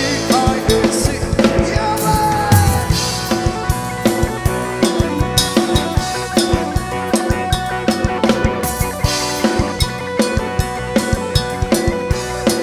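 Thai ramwong dance-band music. A drum kit with snare and bass drum keeps a steady, quick beat under a pitched melodic instrument.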